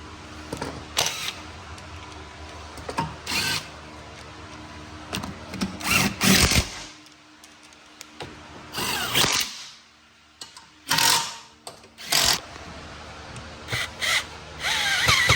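Cordless power drill/driver run in about seven short bursts a second or two apart, spinning fasteners in as the ATV's plastic body panels are bolted back on.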